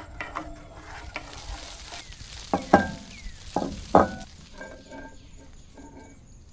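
A wooden spoon stirring a sizzling chili-garlic sauce in a small frying pan, followed by several sharp knocks of cookware set down on a wooden table, the loudest between about two and a half and four seconds in.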